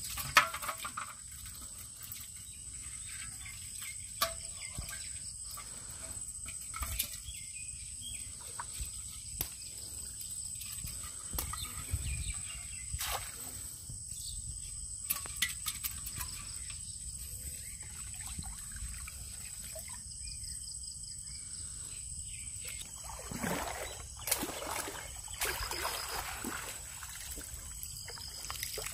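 Water trickling and sloshing as a bamboo shrimp trap is handled and emptied over a pot of shrimp, with scattered small knocks and clicks, and a stretch of louder sloshing near the end.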